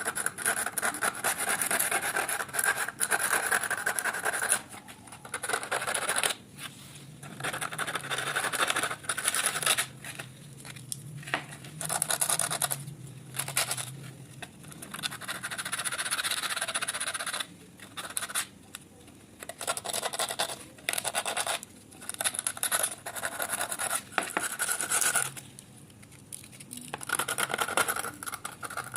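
Rusty steel wrench being scraped and rubbed by hand during rust removal, in repeated scrubbing strokes of a second to a few seconds each, with short pauses between them.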